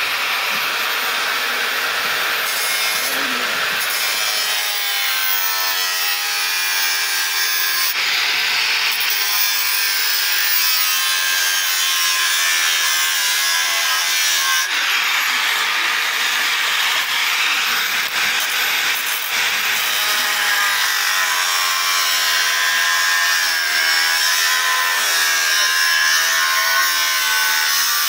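Hand sawing into a plastic toy-car wheel: a steady, continuous rasping of a saw blade against the plastic, with a wavering squeal in it.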